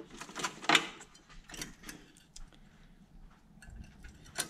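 Irregular light clicks and knocks, about half a dozen, from hands handling wiring and parts, with a sharper click near the end.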